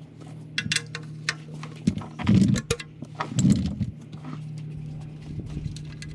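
Metal hand tools clicking and clinking against the oil pan drain plug as it is loosened from under the car, with two heavier knocks in the middle, over a steady low hum.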